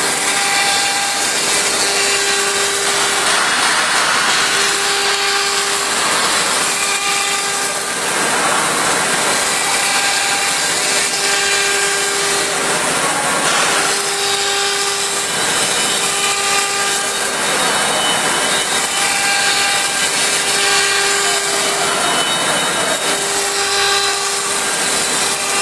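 CNC wood router running and cutting wood: a steady high spindle whine that fades in and out between stretches of rougher cutting noise.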